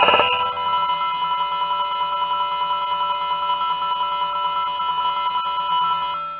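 A steady ringing electronic tone, two high pitches held together and pulsing rapidly like a bell, that fades out near the end.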